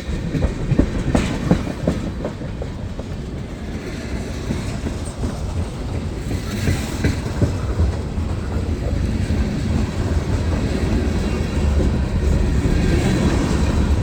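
Freight cars of a CSX mixed freight train rolling past, with a steady rumble and wheels clacking over the rail joints. The clacks come thickest in the first couple of seconds.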